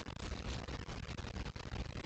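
Trail camera's outdoor ambience: a steady rushing hiss with many faint crackles.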